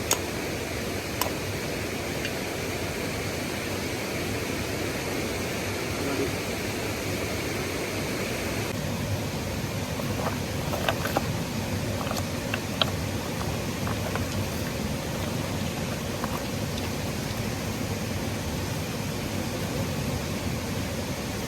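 Steady rush of flowing stream water, with a few faint clicks and knocks about halfway through.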